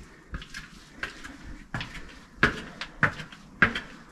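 Footsteps on a hard floor in a small room, about one step every two-thirds of a second, the later steps louder.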